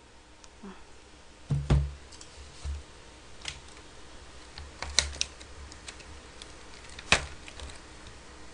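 A clear plastic bag being handled and opened, with scattered crinkles and clicks and three sharper knocks spread through.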